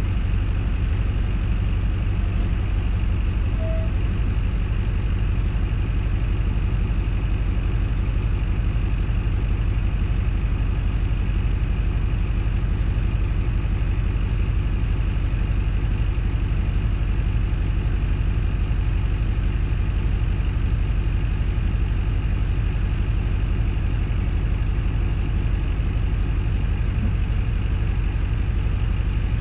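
Diesel engine of a Hino Liesse small bus (KC-RX4JFAA), heard from inside the passenger cabin as a steady low drone that barely changes.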